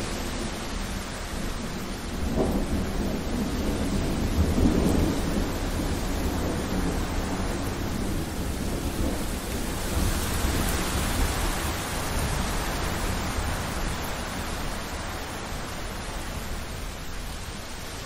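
Heavy rain pouring and splashing steadily, with a low rumble of thunder swelling between about two and six seconds in. The rain's hiss brightens from about ten seconds in.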